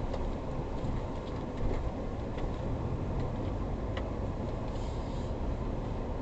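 Ford Ranger Raptor driving on an unpaved dirt road, heard from inside the cab as a steady low rumble of tyres and engine, with a few light ticks.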